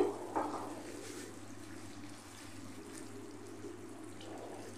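Thick masala gravy simmering in a nonstick pan, a quiet steady bubbling, as a silicone spatula stirs through it.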